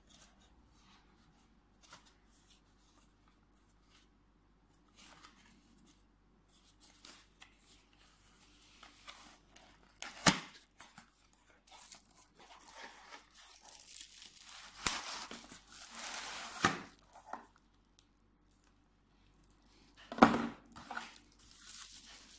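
Cardboard product box being opened by hand: the end flap scuffing and tearing, with rubbing and sliding of cardboard and several sharp cracks, then plastic bubble wrap crinkling as the wrapped work light comes out near the end.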